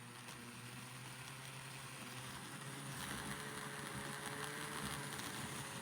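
Small DC motor of an HO-scale switcher locomotive running faint and steady, wheels spinning in place on the track, with a thin whine that grows slightly louder partway through. The motor is being broken in after sitting unused and sounds like it is running better.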